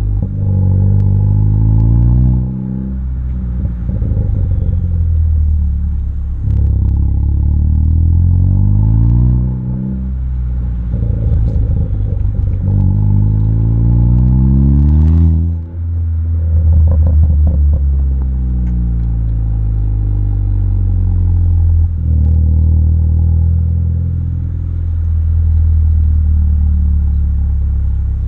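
Ford Focus ST's turbocharged engine through an MBRP cat-back exhaust, revving up several times, its note climbing and then dropping away. About halfway through, as the revs fall, there is a burst of rapid crackling from its pops-and-crackles tune.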